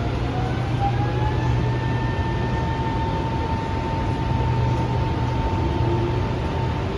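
CSR-Zhuzhou Type A metro train running, with a steady rumble and hum under a motor whine that rises in pitch over the first two seconds and then holds at one pitch.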